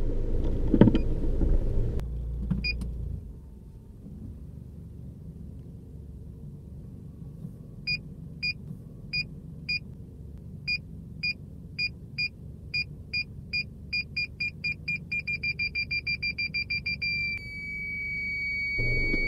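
Car parking-sensor alert buzzer beeping as the car reverses toward an obstacle. The beeps start slow and quicken steadily until they run together into one continuous tone near the end, the sign that the obstacle is very close. A low vehicle rumble is heard in the first couple of seconds.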